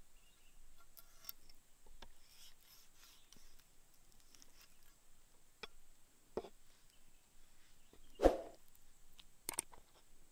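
Knife cutting raw mackerel tuna on a wooden board: quiet slicing and small taps, with a few sharper knocks of the blade or fish on the board, the loudest about eight seconds in.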